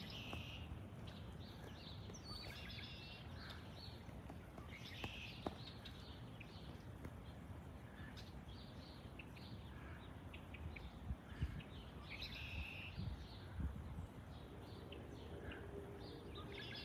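Faint outdoor ambience: birds chirping in short bursts every few seconds over a steady low background rumble, with a few brief low thumps about two-thirds of the way through.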